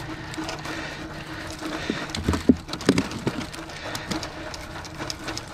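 Live crappies flopping and slapping as they are shaken out through the opening bottom of a fish basket, giving irregular knocks and wet slaps with the sharpest about halfway through.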